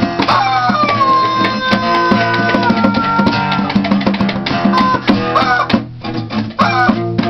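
Loose jam of strummed guitar and bongos with a squeezed rubber chicken squealing over it. The squeal is one long note near the start that slowly falls in pitch, then short wavering squeals near the end.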